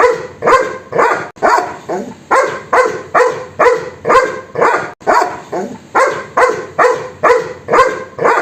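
A dog barking over and over in a steady, even rhythm, about two barks a second.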